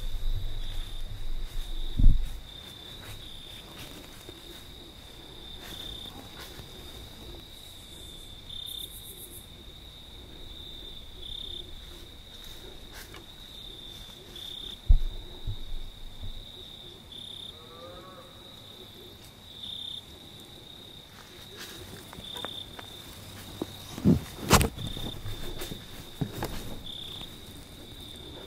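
Crickets chirping steadily in a continuous high-pitched trill, with brighter chirps every second or two. A few low thumps break in, the loudest about two seconds in, others near the middle and toward the end.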